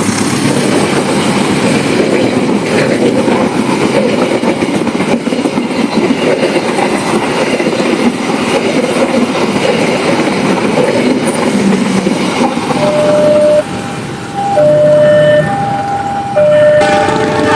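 Argo Parahyangan passenger train running at speed with a loud, steady rush of wheel and rail noise. From about two-thirds of the way in, two steady tones alternate, low then high, a few times, and a fuller multi-tone sound comes in near the end.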